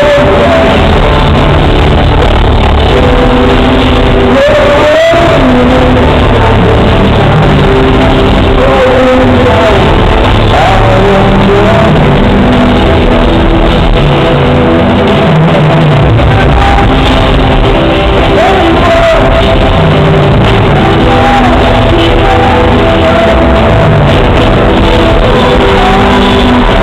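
Live rock band playing loudly with singing, recorded from the audience in a large concert hall.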